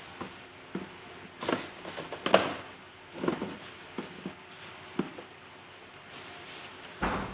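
Handling noise from fitting a plastic monitor stand and base together: a series of knocks, clicks and short scraping rustles, the loudest about two seconds in and another near the end.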